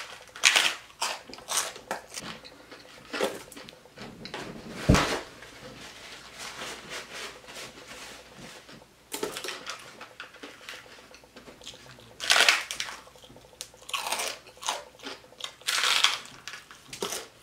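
A person biting into and chewing crunchy fried pork rind (chicharrón). Loud crunches come in clusters in the first few seconds, once strongly about five seconds in, and again in the last few seconds, with quieter chewing between.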